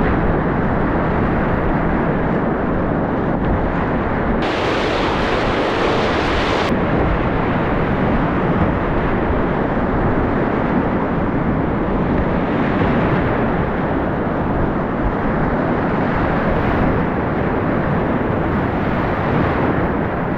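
Whitewater of a river in high water rushing steadily and loudly, briefly sounding brighter and hissier from about four to seven seconds in.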